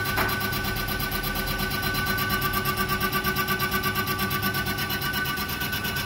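Diesel pump test bench running at a steady speed, driving a high-pressure fuel pump under test: a constant machine whine made of several steady tones.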